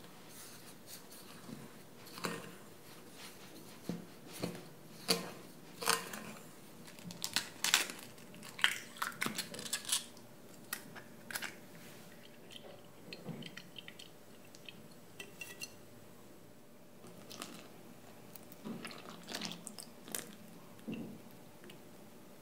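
Wooden spoon stirring dry flour, sugar and sweet pumpkin powder in a glass mixing bowl, scraping and clicking against the glass, with a run of sharp knocks a few seconds in and more light taps near the end.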